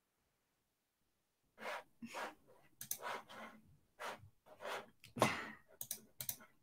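A woman's soft breaths and faint mouth sounds: a string of short, quiet puffs and clicks starting a little under two seconds in.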